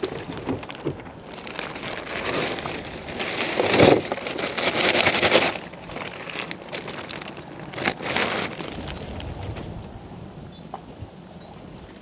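Rustling and crackling handling noise close to the microphone, in uneven bursts that are loudest around four to five seconds in and again near eight seconds, then die down.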